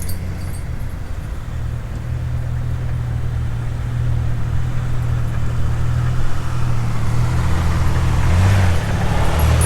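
Car engine running as the car drives up and pulls in, a low steady engine note that grows gradually louder.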